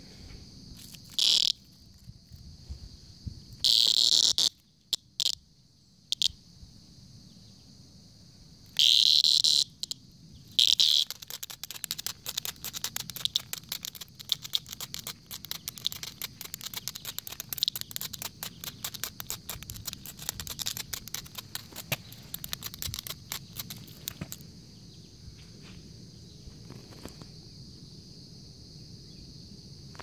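A cicada on the ground gives loud, short buzzing squawks when touched, four of them in the first eleven seconds. It then makes a long stretch of rapid rattling and clicking as it flutters its wings against the concrete, lasting about thirteen seconds. A steady high drone of other insects runs underneath.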